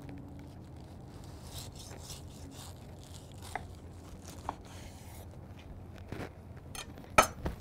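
Knife sawing through a stacked bacon cheeseburger on a wooden board: quiet scraping and crunching through the fried onion rings and toasted bun, with a sharp knock near the end.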